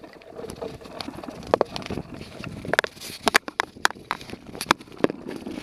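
Bicycle jolting along a gravel trail: irregular sharp knocks and rattles over a steady noise of tyres on gravel.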